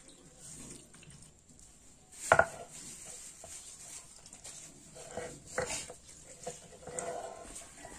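Stone muller knocked and rolled on a flat stone grinding slab (sil-batta): a sharp stone-on-stone clack about two seconds in, then a few lighter knocks and scrapes.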